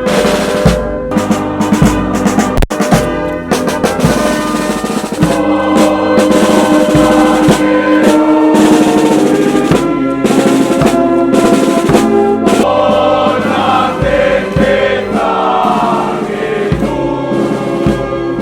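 Band music with drums and snare, and a choir of voices singing along.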